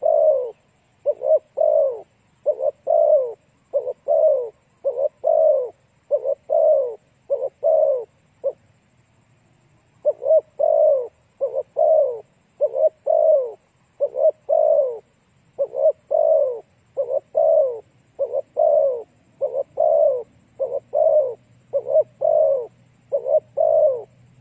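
Spotted dove cooing over and over, in short phrases of two or three falling notes, with a pause of about a second and a half a little over a third of the way in.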